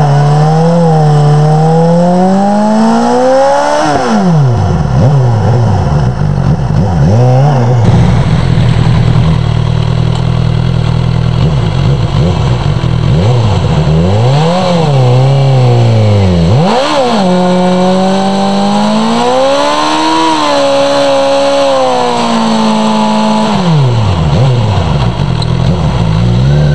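Suzuki GSX-R sportbike's inline-four engine revved hard again and again during a burnout, its pitch climbing and falling in several sweeps and held high for a long stretch near the end, with a rough rushing noise from the spinning rear tyre underneath.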